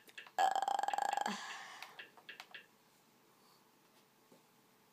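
A boy burping once, loud for about a second and trailing off, followed by a few faint clicks.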